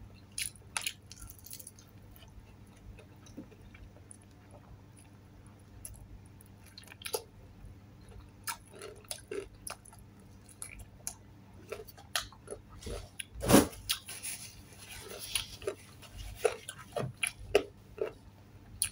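Chewing and small mouth clicks of a person eating fried chicken with her fingers, with one louder knock about two-thirds of the way through.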